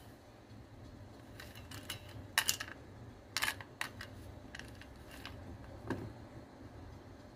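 Light clicks and taps of fingers and dried fruit against a stainless steel bowl as the pieces are picked up and moved, in small irregular clusters. The loudest taps come about two and a half seconds in, with more around three and a half seconds and a single one near six seconds.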